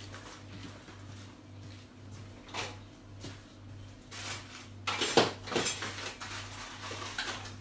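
A few clinks and scrapes of hard tools being handled, with a louder cluster about five seconds in, over a steady low hum.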